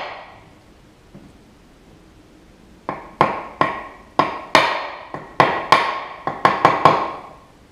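Hatchet being knocked into the end grain of a wooden axe handle to start a split for the wedge. About three seconds in, a quick run of about a dozen sharp knocks with a metallic ring begins and goes on for about four seconds.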